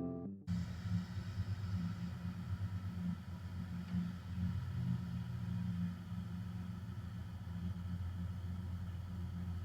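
Second-generation Dodge Ram's gasoline engine idling steadily with a low, even rumble, freshly tuned with new spark plugs and plug wires.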